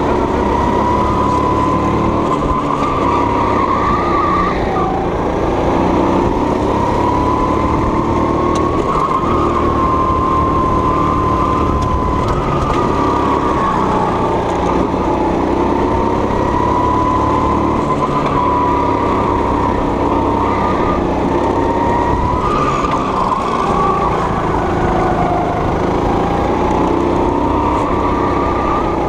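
Go-kart engine running continuously under the driver at speed, its pitch rising and falling slowly as the throttle is worked through the corners.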